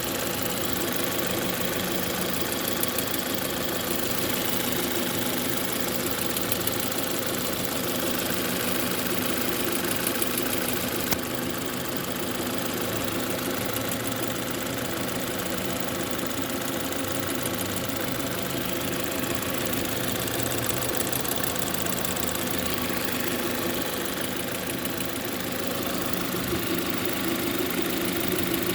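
Lada Granta's VAZ-11182 8-valve engine idling with a steady, rhythmic knock from the top of the valve cover, roughly at cylinder 3. The knock appears only once the engine warms to 60–70 °C, and its cause is unknown.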